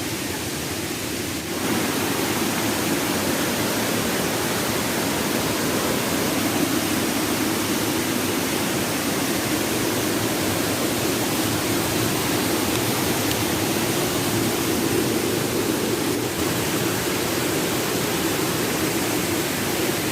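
Steady rush of river water tumbling over falls, a constant noise that grows slightly louder about a second and a half in.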